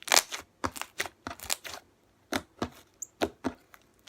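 Fluffy slime made with shaving cream being squeezed and kneaded by hand, its trapped air bubbles popping in crisp, irregular clicks, about three a second.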